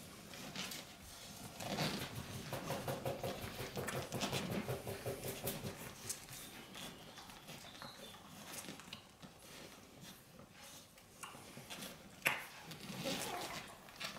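Newborn puppies nursing at their mother, with soft suckling noises and small pitched whimpers and squeaks that are busiest from about two to five seconds in. There is a sharp click near the end.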